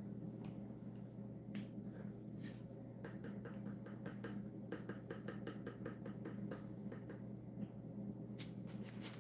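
A rapid run of light metallic clicks and taps, about five a second, from a hand handling a wire cooling rack. They start about three seconds in and are followed by a few more near the end, over a steady low hum.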